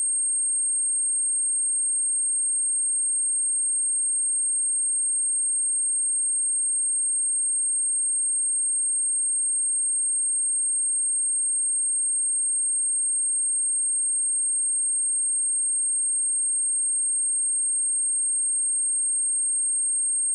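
Pure 8535 Hz sine-wave test tone, a single high-pitched steady note held without change.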